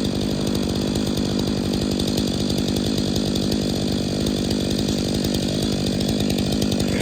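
Stihl MS 500i fuel-injected two-stroke chainsaw with a 25-inch bar running steadily at high revs, cutting wood while the face notch of the tree is cleaned up.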